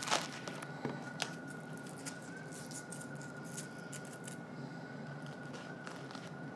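Small clicks and scrapes of the Fugu kit's panels and joining strips being handled and pressed together, the loudest right at the start and a few lighter ones over the next two seconds, over a steady faint high whine.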